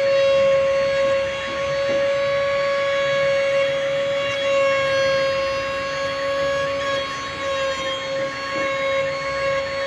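CNC wood router spindle running with a steady high-pitched whine.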